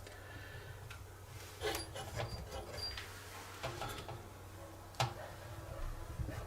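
A pillar drill's belt and pulleys being turned and handled by hand to test a new speed setting. There are scattered light clicks and knocks, the sharpest about five seconds in, with a few short faint squeaks around two to three seconds.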